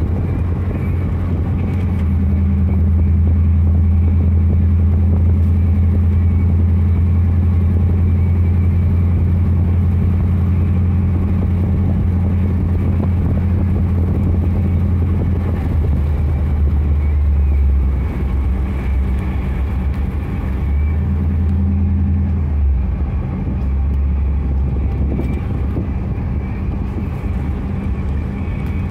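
The V8 engine of an LS-swapped Chevrolet S-10 pickup, heard from inside the cab, droning steadily while cruising. Past the halfway mark the engine note drops lower and wavers a few times.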